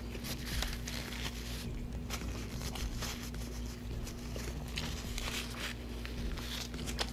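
Paper napkin rustling as it is rubbed over the mouth, in several short bursts, with a sharp click near the end.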